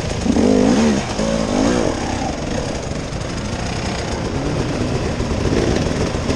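Off-road vehicle engine running over a steady rumble, its revs rising and falling during the first couple of seconds.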